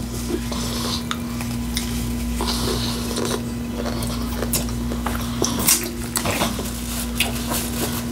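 Utensils clinking and scraping against a dish during eating, with scattered short sharp clicks over a steady low hum.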